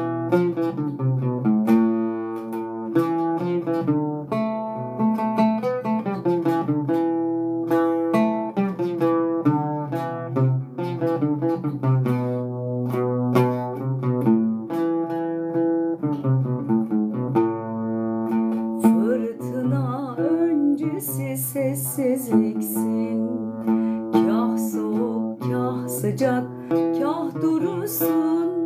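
Oud plucked in an instrumental introduction in makam Nihavend, a flowing run of single notes and chords. About two-thirds of the way through, a woman's voice joins in over it.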